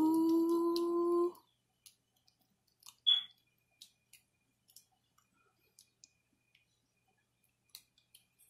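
A woman's drawn-out vocal sound, rising in pitch and then held for about a second and a half. Then small, quiet clicks and taps of a spoon and jar as jerk sauce is dolloped onto raw chicken thighs in a baking dish, with one sharper clink about three seconds in.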